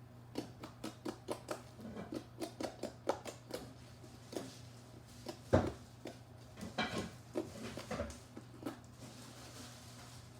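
Light clicking and tapping of kitchen utensils and containers being handled, quick and even at first, then scattered knocks with one louder knock about five and a half seconds in, over a steady low hum.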